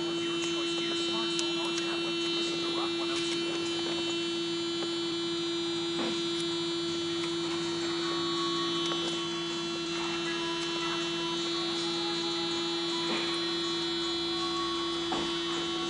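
Steady electrical hum at one constant pitch, with a few faint ticks.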